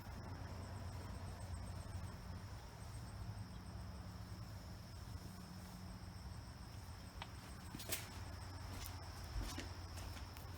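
Faint background hum with a steady low drone and a thin high whine, broken by a few light clicks and taps in the second half.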